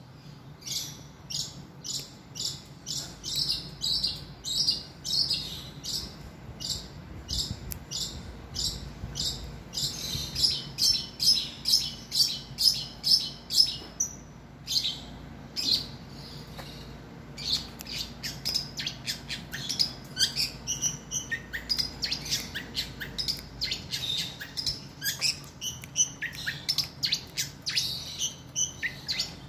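Long-tailed shrike singing loudly: a long series of short, sharp, high notes, about two a second. After a pause of a few seconds in the middle, the song resumes as a faster, more varied run, some notes falling in pitch.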